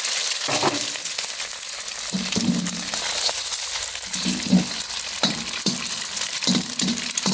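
Beaten eggs sizzling in hot oil in a carbon steel wok: a loud, continuous frying hiss. Near the end a ladle scrapes and clinks against the wok as the egg is stirred.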